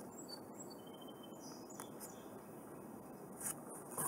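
Faint steady background noise with a few faint high chirps in the first second or so, then brief paper rubbing and rustling near the end as fingers touch the glossy catalog page.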